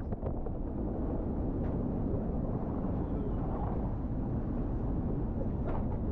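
Steady low rumble and rush of an Ultim racing trimaran under way at speed, heard from inside its enclosed cockpit: hull, water and wind noise, with a few brief faint knocks.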